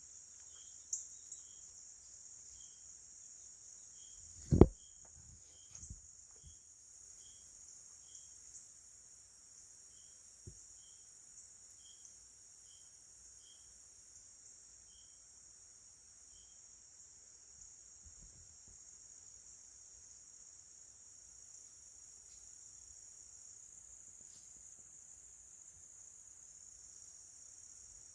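Steady high-pitched chorus of crickets and other insects, with a separate single chirp repeating roughly once a second through the first half. A sharp thump sounds once about four and a half seconds in.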